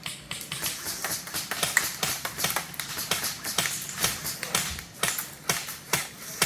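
Airsoft guns firing: a fast, irregular run of sharp pops and cracks, several a second.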